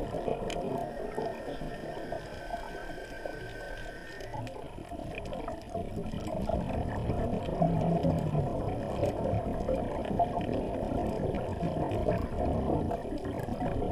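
Muffled underwater ambience recorded through a camera housing on a coral reef: a dense, low crackling noise, with a faint steady high whine during the first four seconds.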